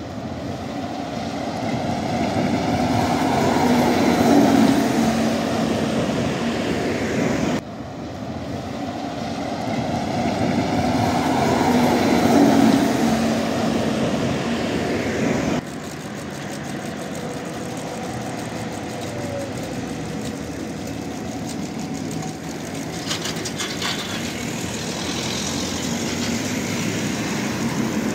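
Trolleybuses passing in the street: electric motor whine and tyre noise swelling to a peak and fading, twice, each cut off abruptly. A steadier, quieter stretch of street traffic follows.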